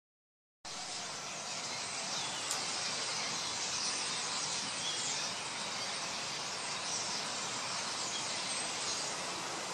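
A large flock of common starlings chattering and calling, a dense, steady mass of many overlapping high chirps and whistles that starts about half a second in.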